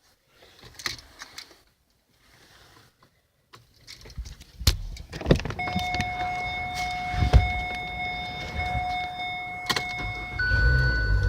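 Unexplained noise from a 2018 Kia Sorento: a steady high-pitched whine of several tones sounding at once, with scattered clicks. About a second before the end the whine changes pitch and a low hum starts.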